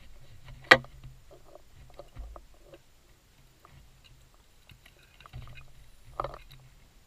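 Underwater sound picked up by a diver's camera: a low rumble with scattered crackles and small clicks, broken by two sharp knocks, a loud one about a second in and another near the end.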